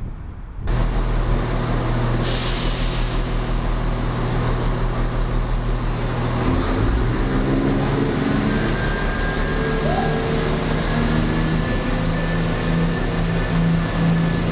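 Chiltern Railways Class 168 diesel multiple unit running along the platform under its own power, its underfloor diesel engines making a steady low drone. About six and a half seconds in the engine note steps up and keeps shifting higher, with a faint high whine over it.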